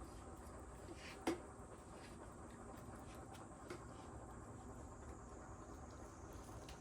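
A cat eating from its food bowl: faint small licking and chewing sounds, with one sharp click a little over a second in and a softer one later.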